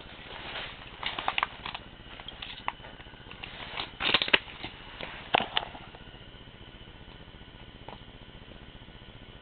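A flurry of light clicks, taps and rustles over the first six seconds, the loudest cluster about four seconds in, then only a steady faint high hum.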